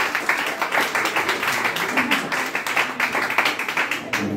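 Audience applauding: many hands clapping in a fast, uneven patter that goes on steadily.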